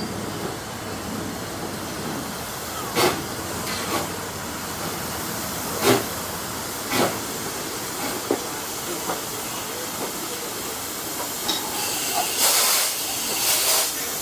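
Steam train under way behind an 1897 Baldwin steam locomotive: a steady hiss of steam and running noise, broken by sharp knocks at irregular intervals and a louder stretch of hiss near the end.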